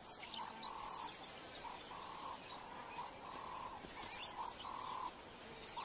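Wild birds chirping and calling: quick high chirps and sweeps over a string of short mid-pitched calls repeating about twice a second.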